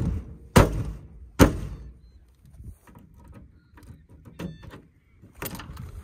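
Two heavy thumps against the Suzuki four-wheel drive's body, under a second apart, like its door being slammed or kicked, followed by a few small knocks.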